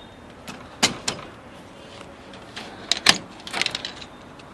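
A few sharp clicks and knocks, two close together about a second in and a quicker cluster around three seconds in.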